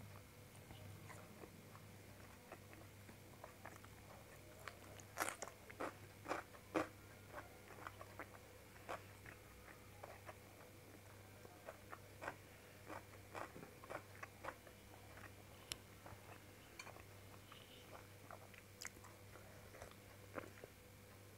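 Close-miked chewing and mouth sounds of someone eating rice and paneer by hand: scattered soft smacks and clicks, busiest about five to seven seconds in, over a faint steady low hum.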